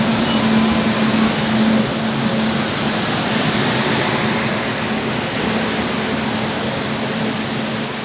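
Running noise inside an ICF passenger coach on the move: a steady rushing rumble of wheels and air, with a low steady hum that is strongest for the first two seconds and weaker after.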